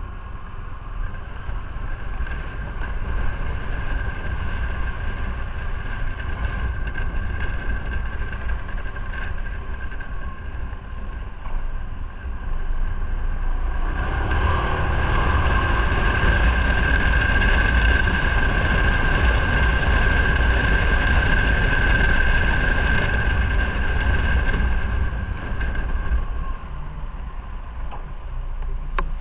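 Motorcycle engine running while riding, with wind rushing over the microphone. It grows louder about halfway through, holds for about ten seconds, then eases off near the end.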